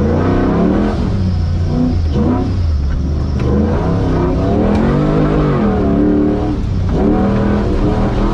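Competition 4x4 truck's engine revving hard, its pitch rising and falling over and over as it is worked through the course, heard from inside the cab. It drops sharply near the end, then climbs again.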